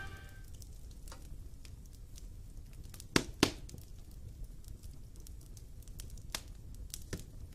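Wood fire crackling: a quiet, steady low rumble with scattered sharp pops, the loudest a close pair about three seconds in.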